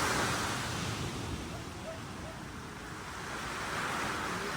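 Ocean surf washing onto the shore, loudest at the start, easing off and then swelling again near the end as the next wave comes in.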